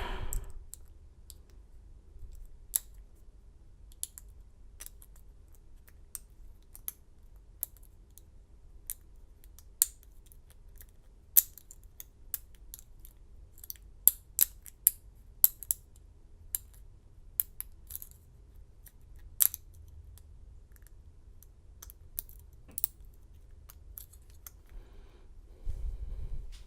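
Lock pick and tension wrench working the pins of an American 700 stainless steel padlock: irregular small metallic clicks and ticks, a few louder snaps among them, spaced at random.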